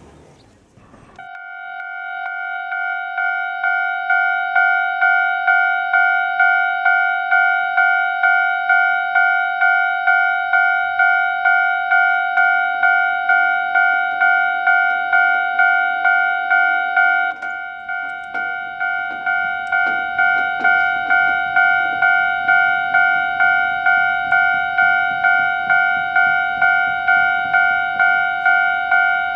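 Japanese level-crossing warning bell ringing: an electronic two-tone 'kan-kan' chime struck over and over at a steady pace of roughly one and a half strokes a second. It starts about a second in and swells to full loudness over the next few seconds.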